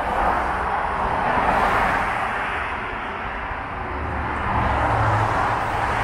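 Steady traffic noise from a busy multi-lane road below: the tyres and engines of passing cars make a continuous rush that swells and eases as vehicles go by, with a deeper rumble building about two-thirds of the way through.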